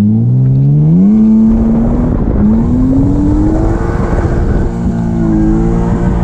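BMW drift car's engine revving up hard under acceleration, heard from inside the cabin: the pitch climbs steeply, drops briefly about two seconds in, then climbs again and holds high with a rough, raspy edge.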